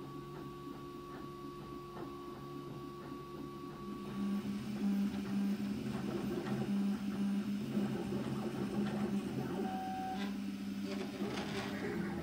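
Prusa i3-style RepRap 3D printer running a print: its stepper motors whine in several steady tones that keep shifting pitch as the print head moves. The sound gets louder about four seconds in.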